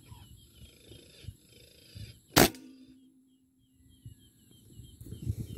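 A single air rifle shot about two and a half seconds in: a sharp crack with a short ringing tail. Faint repeated bird chirps and low rustling come before and after it.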